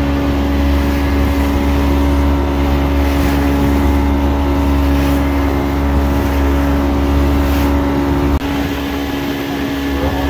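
A boat's motor running steadily under way, with a deep rumble and a steady engine hum. The rumble drops away suddenly near the end and the motor runs on more quietly.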